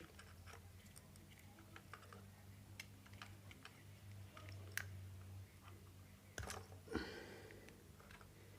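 Faint small clicks and scrapes of a screwdriver working on the plastic casing of a cheap Bluetooth phone handset, over a low steady hum, with two louder knocks and a short scrape about six and a half and seven seconds in.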